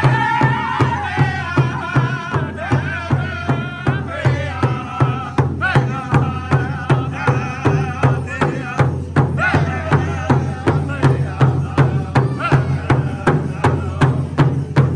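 A powwow drum group: several men striking one large hand drum together in a steady beat of about two strokes a second, with loud, high-pitched group singing over it.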